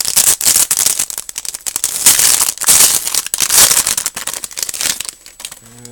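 A trading card pack's wrapper being torn open and crinkled by hand: a dense run of loud crackling and rustling with sharp snaps.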